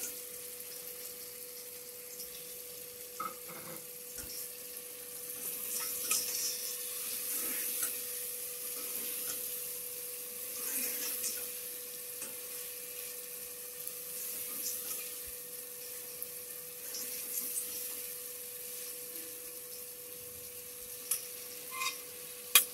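Raw boneless chicken pieces sizzling in hot oil and tomato masala in a metal pot, stirred with a steel spoon, the sizzle swelling as the pieces are turned. The spoon scrapes and clicks against the pot, with a few sharper clicks near the end.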